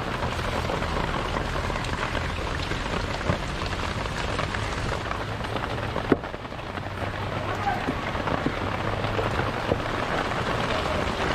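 Steady rain pattering on surfaces, a dense hiss of fine drops, with a single sharp knock about six seconds in.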